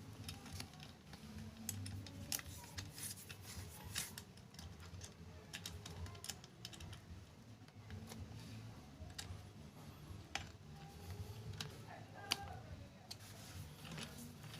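Irregular small clicks and taps of metal parts being handled on a sewing machine during a repair, with no steady running of the machine.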